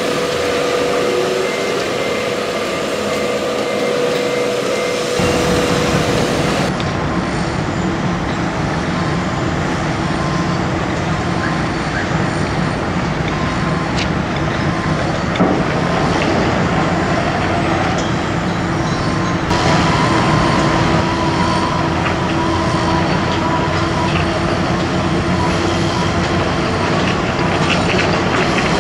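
Heavy construction machinery running steadily: the diesel engines of a crawler crane and a piling drill rig, a continuous hum whose character shifts abruptly about five seconds in and again near twenty seconds. A single sharp knock sounds about fifteen seconds in.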